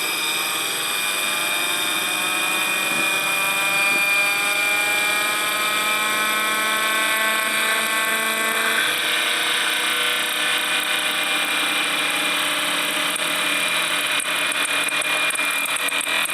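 MiniMite miniature air raid siren run on boosted power: its whine rises steadily in pitch for about nine seconds, then holds at a high, even pitch. Its aged plastic chopper is brittle and split at the shaft, and slips on the motor shaft.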